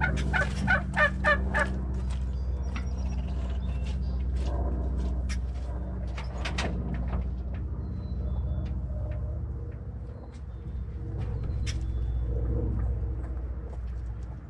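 A turkey gobbling, a quick run of about eight rattling pulses at the start, over a steady low mechanical hum that carries on until just before the end.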